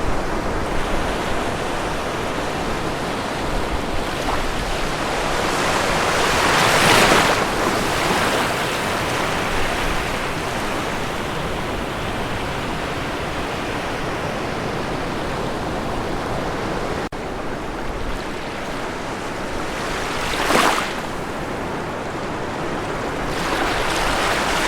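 Ocean surf washing onto the shore: a steady rush of water, with a wave breaking loudest about seven seconds in and a shorter break around twenty seconds.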